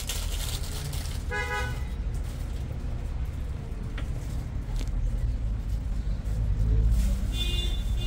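Steady low rumble of street traffic, with a short car horn toot about a second and a half in and a brief higher-pitched beep near the end.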